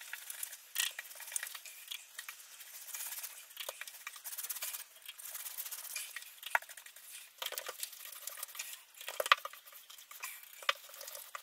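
Paintbrush strokes applying runny PVA-and-water sealer to a ceiling: irregular, scratchy swishes of the bristles with a few small clicks between them.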